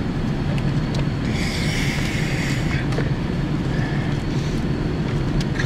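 Steady low background rumble, with a few faint clicks and a short scrape as the oil filter housing is worked loose between the hoses and AC line.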